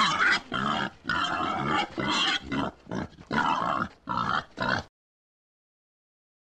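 Wild boar grumbling: a run of about ten rough grunts, roughly two a second, stopping about five seconds in.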